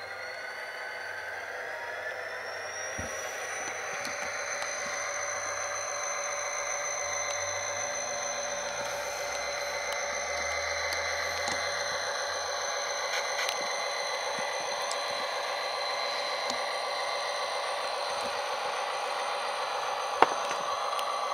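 Model EMD SD40-2 diesel locomotive with a Tsunami sound decoder running: synthesized diesel engine sound from its small onboard speaker with a steady high whine, the whine rising in pitch over the first few seconds and then holding. A single sharp click comes near the end.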